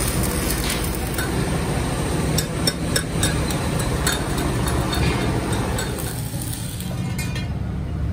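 A steady low rumble, with a run of sharp clinks and knocks between about two and five seconds in.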